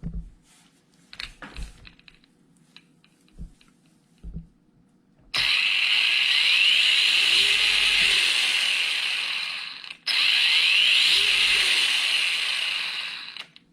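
Hosim Q903 1/16-scale RC truggy's brushless motor and metal-geared four-wheel-drive drivetrain, given throttle twice after a few light clicks. Each burst is a loud run of about four seconds with a whine that rises and then falls, and it sounds really smooth.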